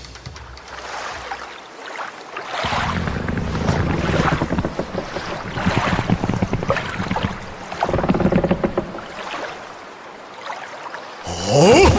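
Wind and sea waves washing around a boat, swelling and easing in level. A rising whoosh near the end.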